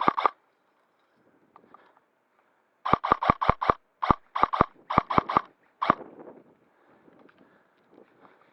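Airsoft gun firing BBs in quick strings of shots, about six a second. There is a short string at the start, then after a pause several strings about 3 to 5.5 seconds in and a last single shot near 6 seconds. Faint rustling of movement follows.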